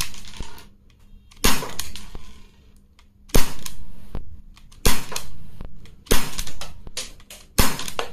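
Umarex Beretta 92FS CO2 pellet pistol firing .177 pellets, five sharp shots about a second and a half apart, each with a short decaying tail, as the double-action trigger is pulled for each shot.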